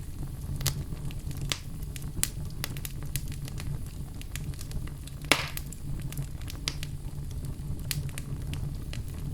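Wood fire crackling in a fireplace: irregular small snaps and pops, one louder pop a little past halfway, over a steady low rumble.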